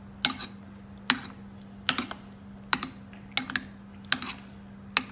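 A metal spoon clicking against the side of a bowl as it stirs beaten egg, a sharp click about once a second, eight in all, over a faint steady hum.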